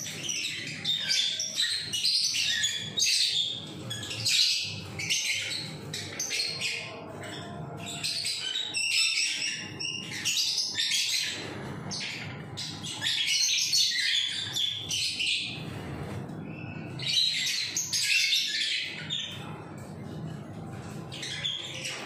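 Caged small pet birds chirping and chattering in bursts of a second or two, one burst after another every few seconds.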